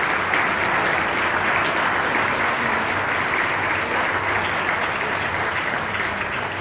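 Audience applauding: steady clapping that eases off a little near the end.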